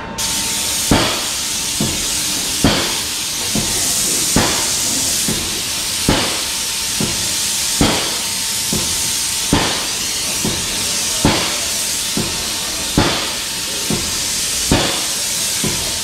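Airless spray gun hissing steadily as it sprays black oil undercoating onto a truck's underside, with a regular knock a little faster than once a second.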